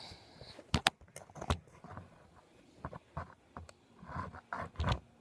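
Handling noise from a phone camera being moved and repositioned close to the microphone: a string of knocks and taps, the two loudest a little under a second in, and short rustling scrapes near the end.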